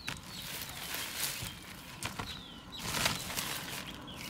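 Dry maize cobs knocking and rustling on a crinkly plastic tarp as they are gathered up by hand, several times. Short falling bird chirps come through in the background.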